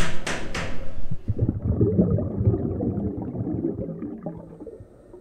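Hammer blows, about three a second, on a wooden door being hung, stopping about half a second in. A low, muffled rumble follows.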